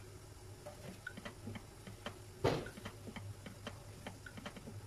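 Chicken adobo simmering in a lidded frying pan: irregular small pops and ticks from the bubbling sauce, with one louder pop about two and a half seconds in, over a low steady hum.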